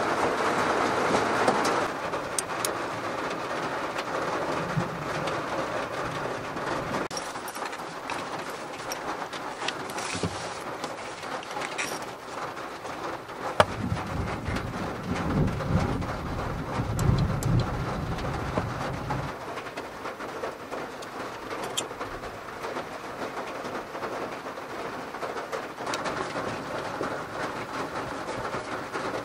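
Heavy rain drumming steadily on the roof of a Honda N-VAN, heard from inside the cabin. Scattered sharp clicks and a stretch of low rustling about halfway through come from a fabric gear pouch being handled and hung on a pegboard.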